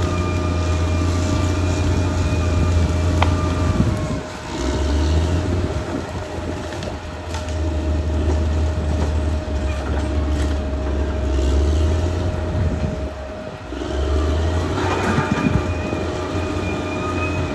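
Caterpillar D6R XL bulldozer working: its diesel engine runs under load with a steady whine and some clanking. The engine sound drops away briefly twice, about four seconds in and about thirteen seconds in.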